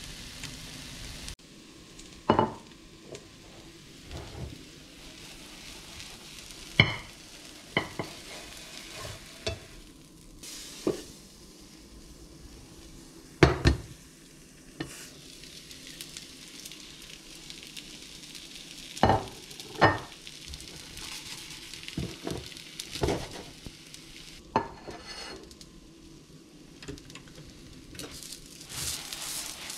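Potato pancake frying in a pan with a faint, steady sizzle. A series of sharp clinks and knocks runs through it as a plate and the pan are handled to flip the pancake.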